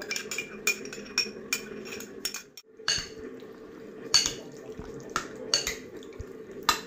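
Metal spoon clinking and scraping against a glass bowl as raw chicken pieces are stirred in a dark soy sauce marinade: irregular sharp clinks, quicker at first and sparser later, over a steady low hum, with a brief break about two and a half seconds in.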